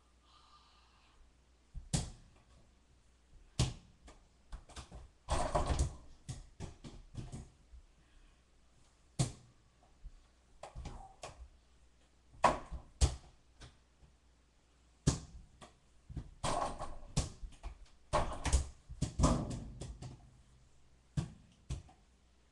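Irregular sharp knocks and thumps, with busier clusters of knocking and scuffling about five seconds in and again from about sixteen to twenty seconds: a small ball bouncing and hitting a door-mounted mini basketball hoop and the floor.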